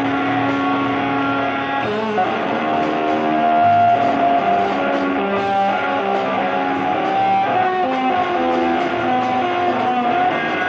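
Live rock recording: an electric guitar plays a lead line of long held notes, one after another, over a bass guitar.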